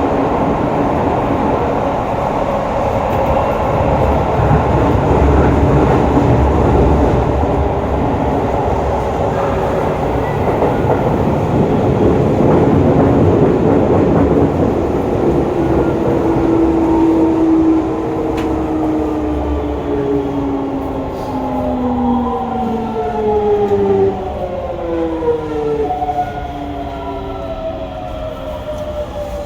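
Hokuso 7300-series train running on GTO-VVVF traction: a steady rumble of wheels and motors at speed. From about halfway through, a stack of inverter tones slides steadily down in pitch as the train brakes and slows.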